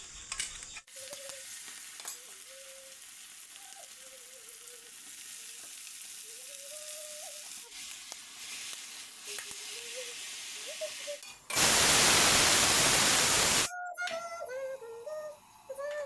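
Watercress greens and garlic sizzling in hot oil in a steel wok as they are stirred, a steady frying hiss. Near the end a much louder hiss lasts about two seconds.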